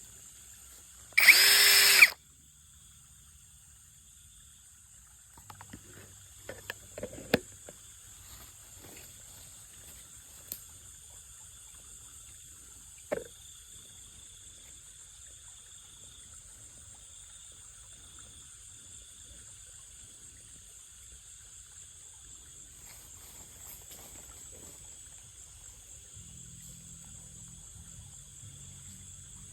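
Cordless power drill running for about a second as it bores into a rubber tree for ethylene gas stimulation. After it come a few faint knocks and clicks of handling, over a steady high-pitched insect chorus.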